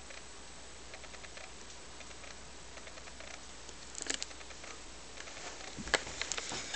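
Handling noise from a handheld camcorder over a faint steady hiss and low hum: a short cluster of small clicks about four seconds in, then a sharper click near six seconds followed by a few lighter taps.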